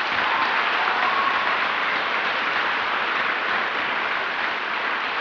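A large crowd applauding, a loud, steady wash of clapping.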